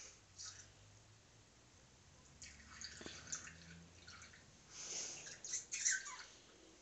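Faint wet squirting and slurping as lemon juice is squeezed from a plastic lemon-shaped squeeze bottle into the mouth, in two short spells.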